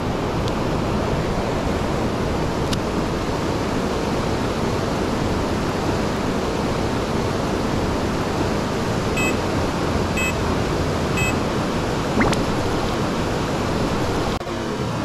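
Shallow mountain stream rushing over rocks, a steady even wash of water. Three short beeps about a second apart sound over it partway through, and the water sound shifts suddenly near the end.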